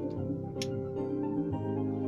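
Instrumental background music of sustained, held notes, with a single sharp click about half a second in.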